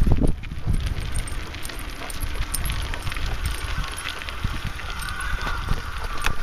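Bicycle riding along a path: steady rumble of the ride and wind buffeting the microphone, with scattered clicks and rattles and a loud bump right at the start.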